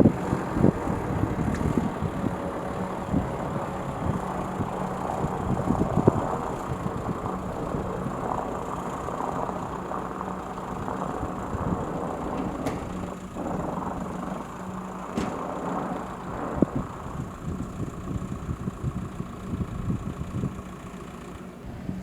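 Motor vehicle engine running steadily with a constant low hum, with occasional clicks and knocks.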